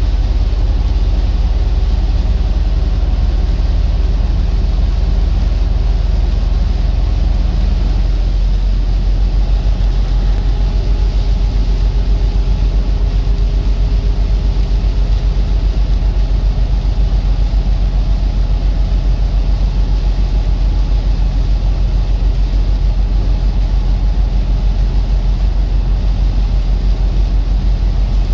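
Semi truck under way: a steady low engine drone with road noise, taking on a fast, even pulse from about eight seconds in.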